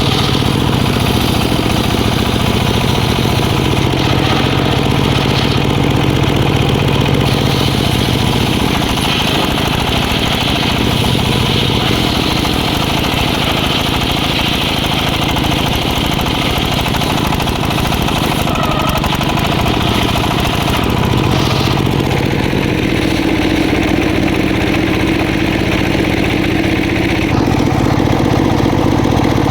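Engine-driven circular sawmill running steadily, its engine note shifting a few times, about a third of the way in, past the middle, and near the end.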